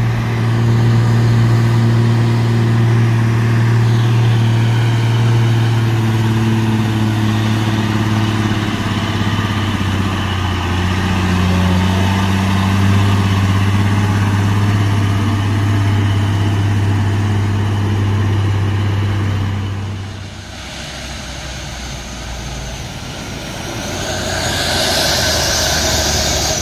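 Heavy diesel truck engine labouring up a steep climb: a steady low drone that fades away about twenty seconds in. Another vehicle comes up near the end with a loud high hiss.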